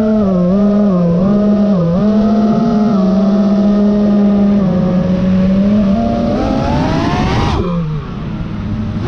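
FPV freestyle quadcopter's brushless motors whining, their pitch wavering with the throttle. Near the end the whine climbs steadily for about two seconds, then drops sharply to a low pitch as the throttle is chopped.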